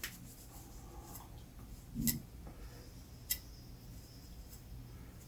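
Three light clicks over a low steady hum: one at the start, the loudest about two seconds in with a dull thump, and one a little after three seconds.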